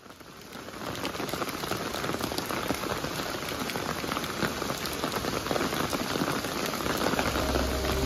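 Steady rain pattering on a surface, a dense hiss of fine drops that fades in over the first second. Music comes in near the end.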